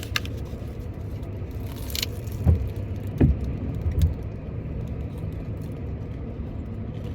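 Low steady rumble of a car's interior with the engine running. About two seconds in there is a click, followed by three dull thumps as food is handled and bitten into.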